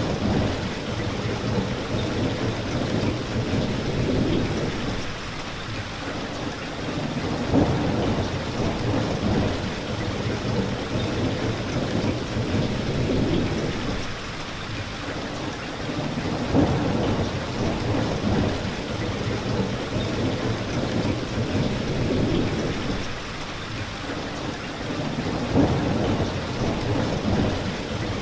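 Steady rain with rolling thunder. Three thunder rolls, each starting sharply and rumbling away over several seconds, come about nine seconds apart.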